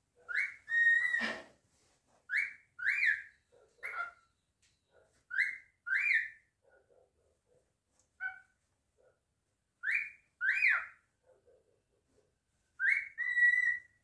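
Cockatiel whistling, several times over with pauses between. Most phrases are wolf whistles, a short rising note followed by one that rises and then falls. Two phrases, about a second in and near the end, instead hold a long steady note.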